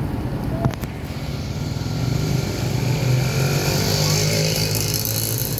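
Bus diesel engine running through its raspy, tinny 'ngorok' exhaust, growing louder about two seconds in. There is a short click just under a second in.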